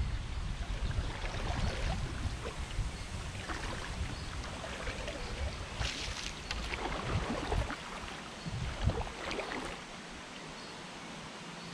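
Kayak paddle strokes, the double blade dipping and splashing in shallow water. Wind rumbles on the microphone and dies away near the end.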